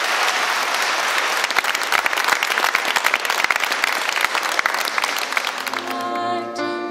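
Large audience applauding, a dense patter of clapping; near the end the applause fades under music with held notes.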